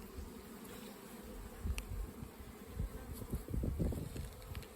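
Honeybees buzzing in a steady hum over an open hive, with a cluster of low rumbling thumps a little past the middle.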